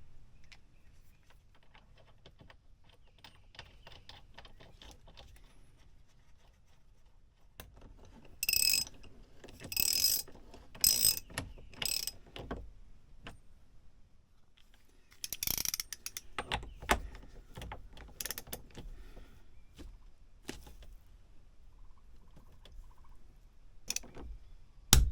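Intermittent mechanical clicking and knocking from hand work on a Ford Transit steering wheel. Four short bursts of rapid clicking come about eight to twelve seconds in and another a few seconds later, then scattered knocks.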